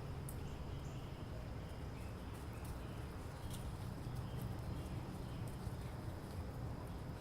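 Suburban early-morning ambience: a steady low rumble with a thin, steady high tone, faint scattered bird chirps and a few small sharp clicks.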